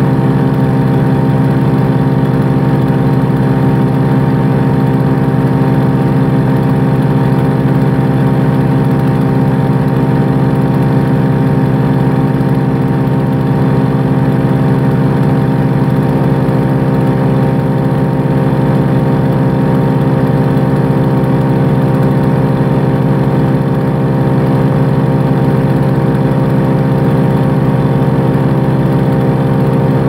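Hansa C16 wood chipper's engine running at a steady speed, with no wood being fed in.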